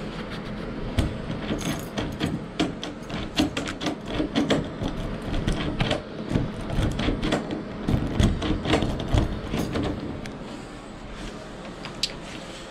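Metallic clicks and rattles of a key being worked in a keyed door-knob lock cylinder, with the keys on the ring jangling, over a steady low hum.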